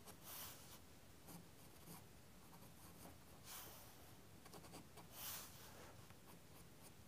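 Faint scratching of a graphite pencil drawing on sketching paper, in short strokes every second or so.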